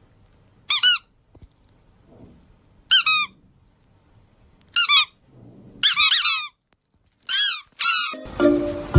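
Squeaky toy squeezed in short, high squeaks that each fall in pitch. They come in quick runs of one to three, about five times.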